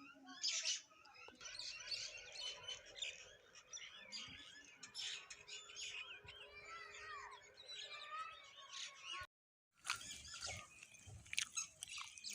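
Many small birds chirping and calling over one another, a dense mix of short chirps and quick sliding notes. The sound cuts out completely for about half a second about nine seconds in, then the chirping carries on.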